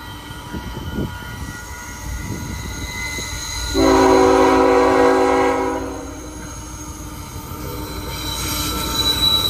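CN ET44AC diesel locomotive's air horn sounding one long blast of about two seconds, starting about four seconds in, over the rumble of the approaching train. Near the end, as the locomotive passes, a thin high wheel squeal begins to build.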